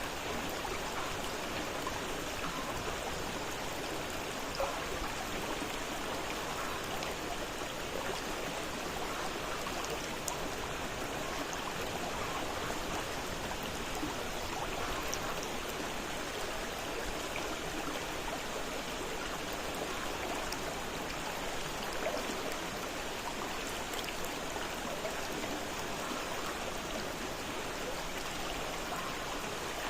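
A fast-flowing river running steadily over rocks, a constant rushing of water with small splashes and gurgles through it.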